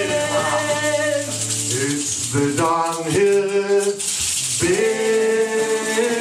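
Live acoustic band playing in a small room: acoustic guitars, upright double bass and drums, with voices singing long held notes that slide between pitches. A high hissing percussion sound rides over it in the middle.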